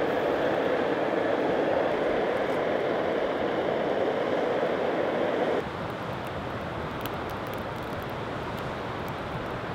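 A steady rushing noise that cuts off abruptly about halfway through, giving way to a quieter sizzle with faint scattered pops: black bean patties frying in a pan.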